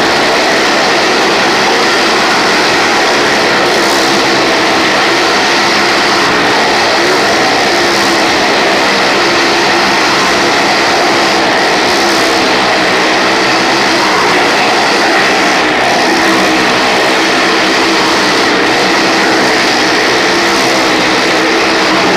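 Motorcycle engine running hard as it laps the vertical wooden wall of a well-of-death drum: a loud, steady drone.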